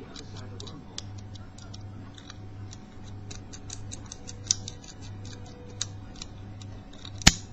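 Lock pick and wire tension wrench working the levers of a small brass four-lever cabinet lock: light, irregular metallic clicks and ticks over a steady low hum. One loud sharp click near the end, as the lock opens.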